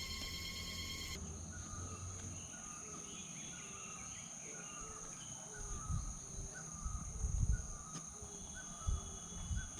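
Short chirping animal calls, repeating about twice a second, with low thumps on the microphone from about halfway through.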